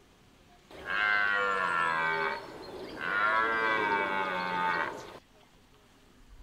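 Red deer stag roaring in the rut: two long roars of about two seconds each, the first about a second in and the second after a brief pause.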